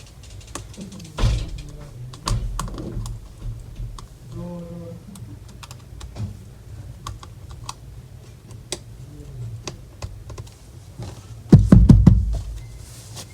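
Scattered small clicks and taps from hands and tools working on an open laptop's internals, with a short burst of louder knocks near the end.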